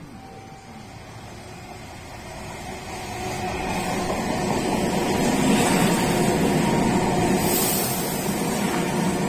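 Meitetsu express electric train passing through the station at speed. It grows louder over the first few seconds as it approaches, then runs close by the platform with the rumble of wheels on the rails and a hiss that peaks near the end.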